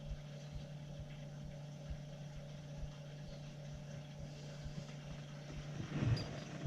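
Steady low hum of boiler-room heating equipment running, with rustling about six seconds in and one sharp click at the very end.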